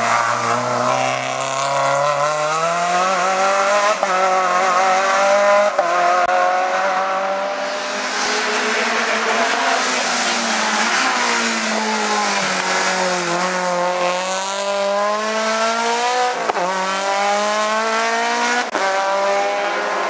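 Hillclimb race cars' engines at full throttle, revving up through the gears. The pitch climbs and drops sharply at each quick gearshift, several times over.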